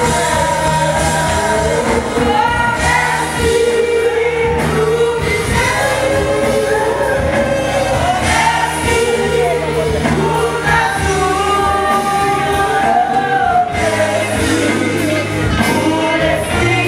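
A congregation singing a worship hymn together, accompanied by a brass band holding sustained notes under the voices.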